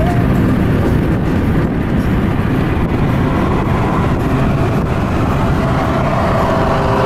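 Loud wind and tyre roar from driving at motorway speed, with a car running alongside in the next lane. A faint steady droning tone joins in near the end.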